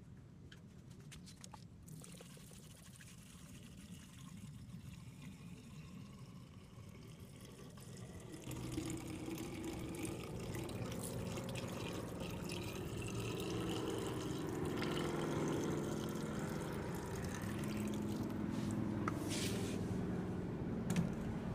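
Distilled water poured from a plastic jug into a car's coolant reservoir, filling it during a radiator flush; the pour starts about eight seconds in and keeps running steadily.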